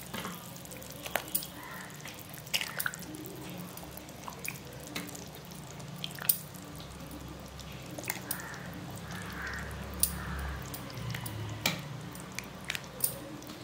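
Pieces of fish being slipped by hand into simmering fish curry in a pan: scattered small wet plops and drips with sharp clicks here and there, over a faint low hum.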